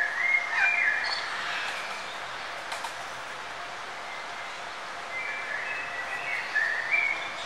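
Birds chirping, with short whistled calls about half a second in and again a few seconds later, over a steady hiss of outdoor background noise.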